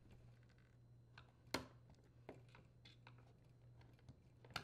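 Faint, scattered clicks and taps of a flathead screwdriver prying at the plastic housing of a Frigidaire dishwasher circulation pump, the sharpest about a second and a half in.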